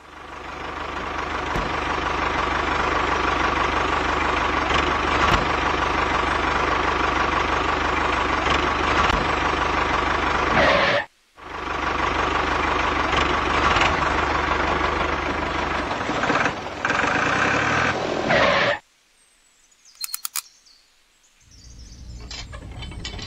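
Tractor engine running steadily. It breaks off for a moment about eleven seconds in, resumes, then stops about two-thirds of the way through. A quieter, steady mechanical hum comes in near the end.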